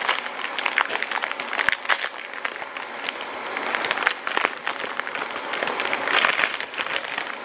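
Plastic snack wrapper crinkling and rustling as fingers pull it open close to the microphone: a dense, irregular run of crackles and sharp clicks.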